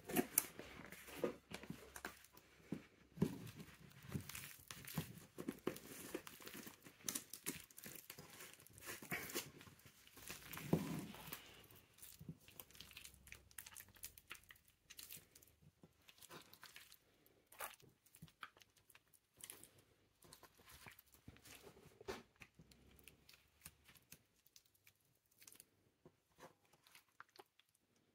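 Peeled bananas squeezed and mashed by hand in a glass bowl: wet squelching with quick sticky crackles and clicks. The crackles are dense through the first dozen seconds and sparser after that.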